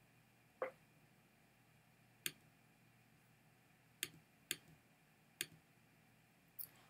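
Clicking at a computer: about six short, sharp single clicks, irregularly spaced, with near silence between them.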